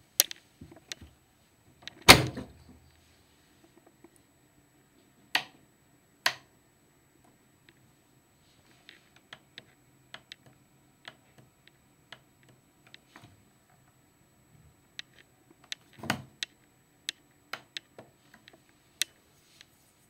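Front door of a Candy washer-dryer shut with a loud thud about two seconds in, followed by scattered sharp clicks of its control-panel buttons being pressed, with a louder cluster of clicks and knocks near the end.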